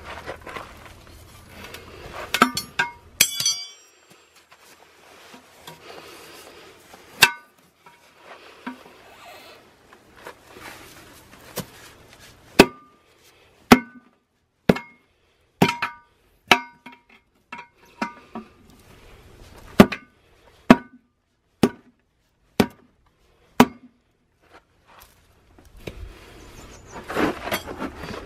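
Steel tyre levers knocking and clinking against a steel wheel rim while an old, hardened tyre is pried off by hand. There are sharp metallic knocks with a brief ring, about a dozen of them roughly a second apart through the middle, and rubbing and scraping near the end.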